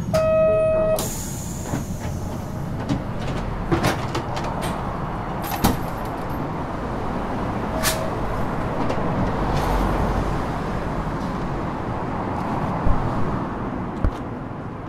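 Cabin sound of a 1950 Nippon Sharyo Series 202 tram car at the end of its run. A buzzer sounds for about a second, then air hisses, over a steady rumble with scattered clicks and knocks.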